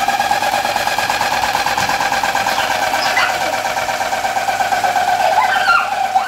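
Electric fan running noisily, giving a steady high whine with a fast fluttering pulse. A few short chirps slide over it around the middle and near the end.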